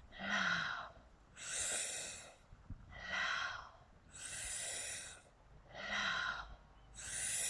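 A woman's rhythmic mouth breathing in a yoga breathwork exercise: strong, airy breaths drawn in through rounded lips alternate with shorter, softly voiced exhales, about three cycles in a steady rhythm.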